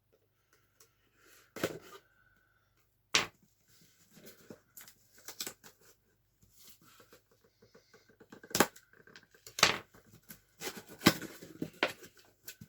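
Cardboard box and paper packing being handled: irregular rustling and crinkling with several sharp clicks and knocks.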